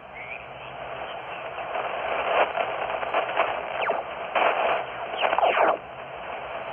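Amateur radio transceiver's receiver audio: a steady hiss of band static with several short sliding whistles, as the dial is tuned across signals.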